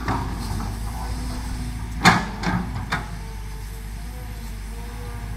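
Kobelco SK200 hydraulic excavator's diesel engine running steadily while the machine digs, with three sharp knocks about two seconds in, the first the loudest, as the bucket comes down into the soil.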